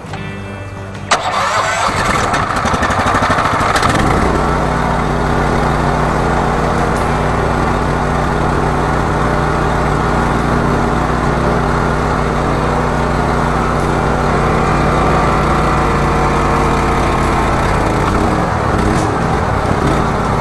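The engine of a high-pressure drain-jetting machine starting: a click about a second in, the sound building over the next few seconds, then the engine running steadily.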